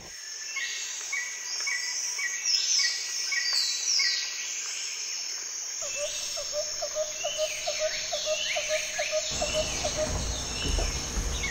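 Outdoor chorus of birds giving many short, falling whistled calls over a steady high insect trill. In the middle a lower chirp repeats about four times a second for a few seconds, and a low background rumble comes in near the end.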